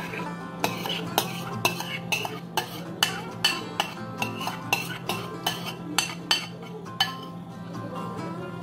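Metal spoon scraping and tapping against a bowl while thick cream is scraped out into a glass dish, with sharp clinks about twice a second. Background music plays underneath.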